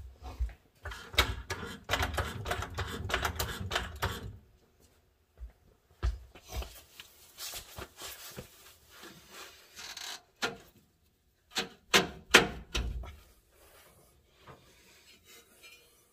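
Metal clicks, rattles and knocks of hand work on a car's front suspension. A quick run of clicking and rattling lasts about three seconds, then separate knocks and clinks follow, the loudest around twelve seconds in.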